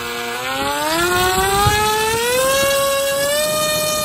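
Electric motor and propeller of an AeroScout RC plane spinning up on a throttle test, a whine rising steadily in pitch for about three seconds and then holding steady.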